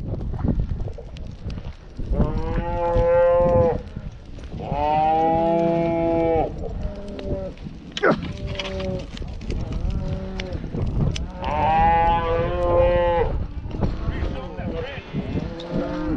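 Cattle bawling: three long, loud bawls about two, five and eleven seconds in, with fainter calls from the herd between them.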